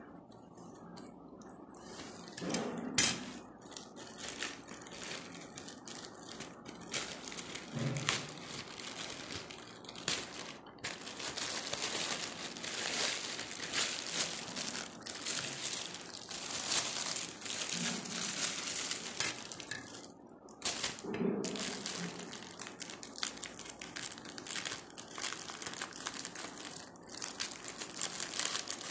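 Plastic mailer bag and clear plastic wrapping crinkling and rustling as they are cut with scissors and handled, with a sharp click about three seconds in.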